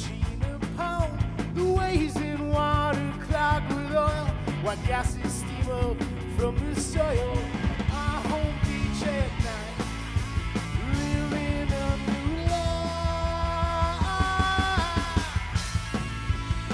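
Rock band playing: a sung vocal melody, with held and gliding notes, over electric bass and drums.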